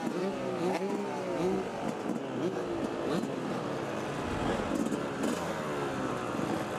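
Several motocross dirt bike engines running at once, riders blipping the throttles so the revs rise and fall again and again over an idle.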